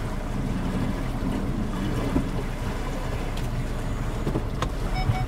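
Engine running with a steady low rumble, heard from inside a car's cabin.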